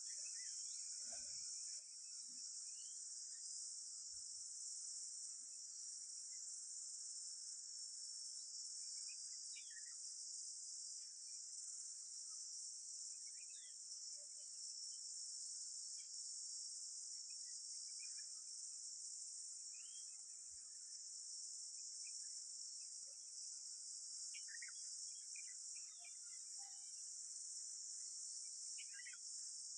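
A steady, high-pitched chorus of insects such as crickets or cicadas, with short bird chirps scattered through it.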